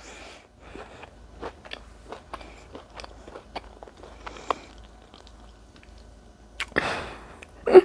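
A person chewing a mouthful of crunchy chocolate cookie with a whole chocolate-covered cherry in it: soft, irregular crunches every fraction of a second. Near the end come a louder breath and a brief vocal sound.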